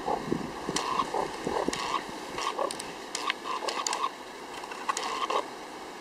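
Short, irregular chirping calls from a meerkat, mixed with small sharp clicks and scuffs.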